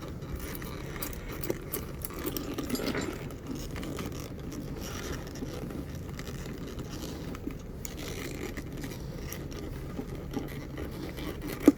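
Handling noise from a motorcycle tool bag and its straps being worked by hand: rubbing and scraping with small scattered clicks, a slightly louder stretch a few seconds in, and one sharp click near the end.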